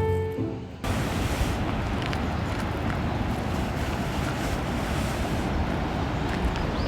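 A steady rush of ocean surf and wind, with wind buffeting the microphone. It starts under a second in as the background music stops.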